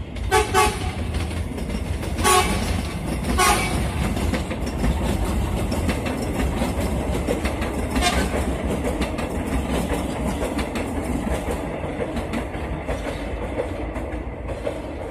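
Airport rail link electric train running past on the tracks with a steady rumble and rail clatter, while a train horn gives short toots: a couple in the first few seconds and one more about eight seconds in.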